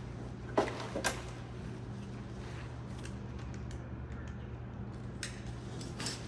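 A few sharp clicks and knocks of firefighters handling gear and straps on a basket stretcher, over a steady low hum.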